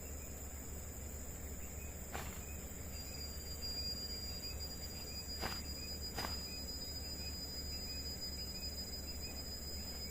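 Night forest ambience of insects calling: a steady high buzzing chorus, joined about three seconds in by a thin, high, steady whine, with faint repeated chirps underneath. Three short sharp clicks come through, two of them close together midway.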